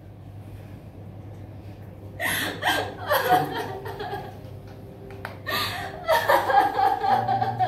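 A woman sobbing in loud, broken bursts, once about two seconds in and again from near the middle to the end.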